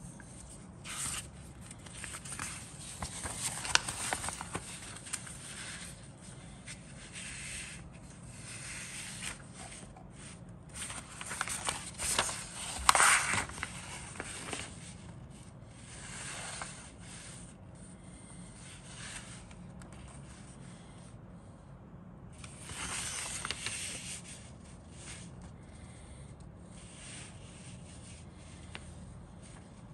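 Paper instruction sheet being handled and its pages turned: rustling and rubbing in several bursts, the loudest about halfway through.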